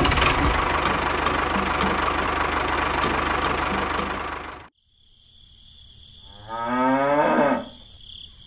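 A steady mechanical rumble with a hiss over it, which cuts off abruptly a little past halfway. Then a steady cricket chirping starts, and one cow moo falls in pitch for about a second.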